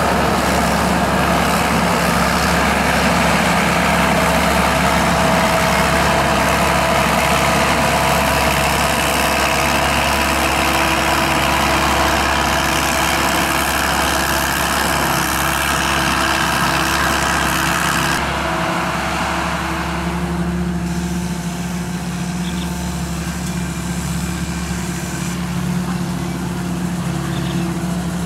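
Combine harvester running, its 260-horsepower turbocharged diesel engine droning steadily under the clatter of the machinery. About eighteen seconds in the higher, noisier part of the sound falls away, leaving mostly the steady low engine drone.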